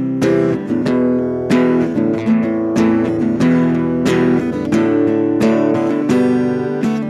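Acoustic guitar strummed in a blues rhythm, chords struck about twice a second.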